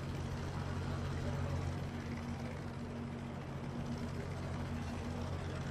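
Helicopter engine and rotor running, a steady low drone.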